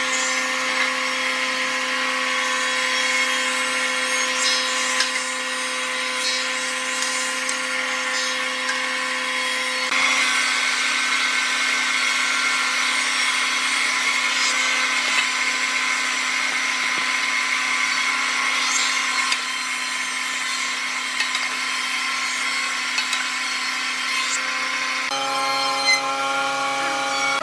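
Thickness planer running with a steady hum as a wooden board feeds through and is planed. Near the end the sound changes abruptly to a different steady machine hum.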